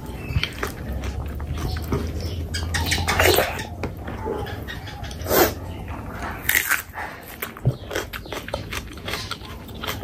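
Close-miked eating sounds of curry with meat: irregular chewing and mouth noises with scattered sharp clicks.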